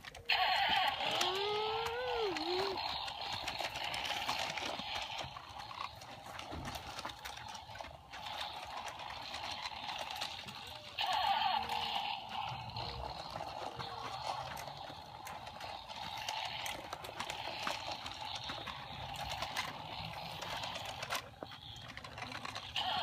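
Children making buzzing engine noises with their mouths, a lip-trilled "brrrm", while pushing toy tractors through dirt. The droning runs on continuously and rises and falls in pitch, loudest about a second in and again at about eleven seconds.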